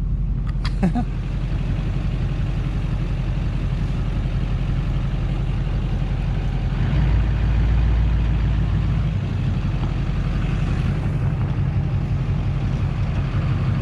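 2006 Chevrolet 2500HD's straight-piped LBZ Duramax 6.6-litre V8 turbo-diesel running steadily as the truck drives, its low drone swelling for a couple of seconds about seven seconds in.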